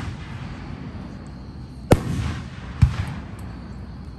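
Aerial fireworks shells bursting: two sharp booms about a second apart, roughly two seconds in, each followed by a rolling echo.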